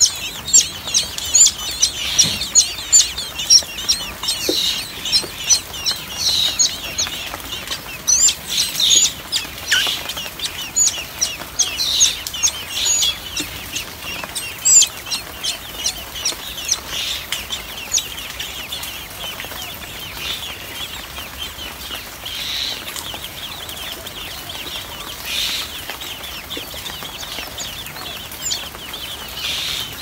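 Nestling songbirds begging: rapid, repeated high-pitched chirps, dense for the first half and thinning out later, with a few short noisy bursts near the end.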